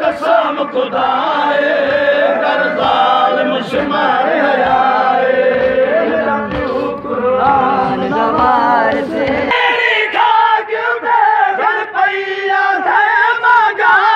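A group of men chanting a noha, a Shia mourning lament, together in unison. Sharp, regular beats run through the chant, steadiest in its second half.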